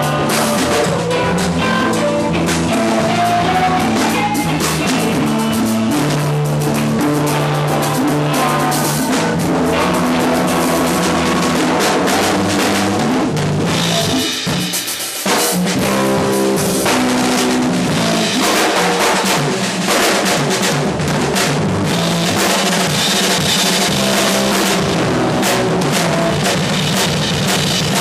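Live band playing instrumental music: a drum kit with bass drum and snare, electric guitars and hand drums. A short break comes a little past halfway before the band kicks back in.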